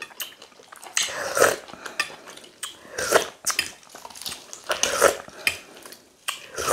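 Eating sounds: chicken being bitten and chewed off the bone, with a metal spoon clinking and scraping against a glass dish, in several separate irregular bursts.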